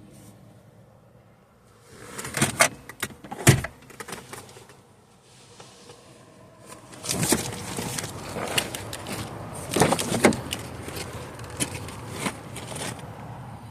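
Seat belt being handled in a car cabin: a few sharp metallic clicks and knocks a couple of seconds in, then a longer stretch of rustling and clatter with more clicks as the belt webbing is pulled and the buckle handled.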